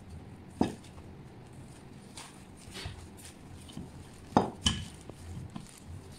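Kitchen clatter: scattered light knocks and clinks of kitchenware, with three louder knocks, one under a second in and two close together about four and a half seconds in.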